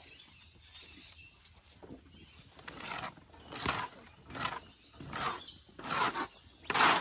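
A plastic rake scraping straw and muck across a muddy dirt floor: about six quick sweeps a little under a second apart, starting a few seconds in and getting louder toward the end.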